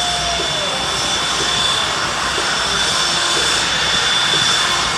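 Airplane engine noise, a loud steady rush, with a short tone that drops in pitch just under a second in.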